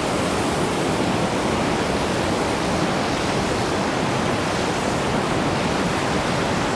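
Creek rapids at high water rushing down a rock waterslide, a loud, steady rush of whitewater.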